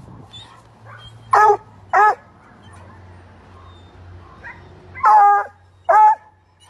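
Treeing Walker Coonhound barking: two short barks about a second and a half in, then a longer drawn-out bark about five seconds in, followed at once by another short bark.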